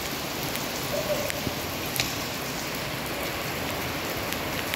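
Steady hissing noise like rain, with a few scattered light ticks.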